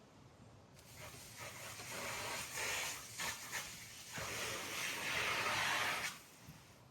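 A rushing hiss that starts about a second in, rises and wavers, and cuts off sharply about six seconds in.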